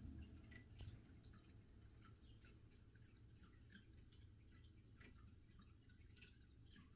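Near silence: faint room tone with a low hum and scattered faint ticks.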